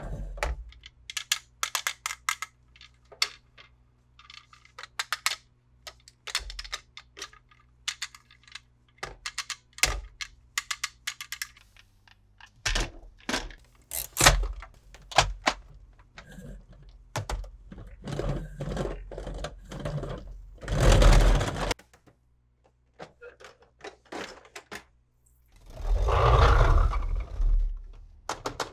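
Plastic toys and their packaging being handled: a run of small clicks, taps and knocks, with two longer crinkly rustles in the second half.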